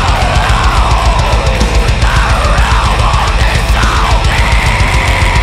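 Heavy metal music: fast, dense drumming over a thick wall of guitar and bass, with a high line sliding up and down in pitch.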